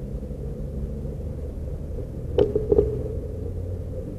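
Road traffic passing through an intersection: a steady low rumble of vehicle engines. About two and a half seconds in come two short, sharp knocks.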